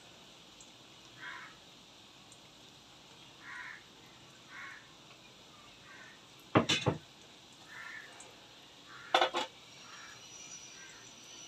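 Crows cawing again and again in the background, about ten short calls. Two loud clatters of a metal utensil against the cooking pan stand out, one a little past the middle and another about two and a half seconds later.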